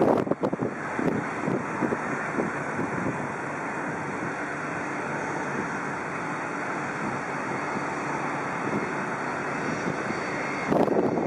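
Boeing 747-400 freighter's four jet engines at takeoff power during the takeoff roll, heard as a steady rushing roar. Wind buffets the microphone at the start and again near the end.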